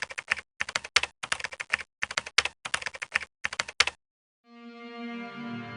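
Rapid clicking in several short bursts over about four seconds, with dead silence between the bursts. Near the end a low sustained music chord fades in.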